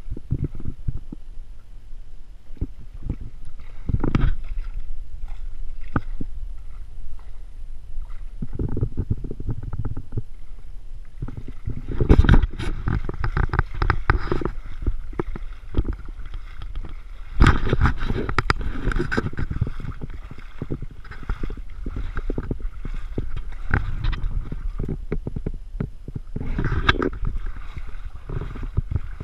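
Gusty wind buffeting the microphone with water lapping and sloshing against the hull of a flats skiff, in irregular low rumbling surges, with the strongest gusts about twelve and seventeen seconds in.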